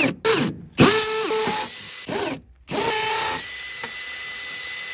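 Cordless drill with a masonry bit boring into brick: two short trigger bursts, then a longer run, a brief stop, and a steady run with a held motor whine.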